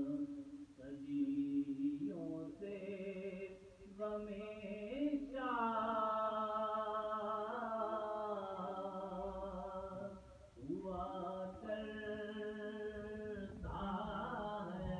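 A man chanting soz, the Urdu elegiac lament for Imam Hussain, unaccompanied, in long held, slowly wavering notes with short pauses between phrases.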